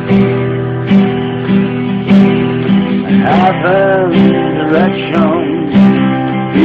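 Song music led by strummed acoustic guitar over sustained chords and a pulsing low note. A gliding melody line comes in about three seconds in.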